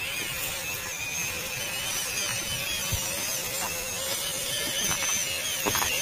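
Electric motor and gearbox of a 1/12-scale MN99 Defender RC car whining steadily as it drives over leaf litter, the pitch wavering slightly, with a few short clicks in the second half.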